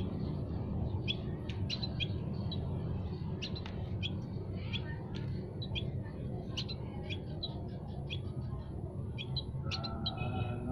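Several small songbirds in an aviary chirping, with short, high chirps coming several times a second over a steady low rumble. Near the end, a lower call with several stacked tones joins in.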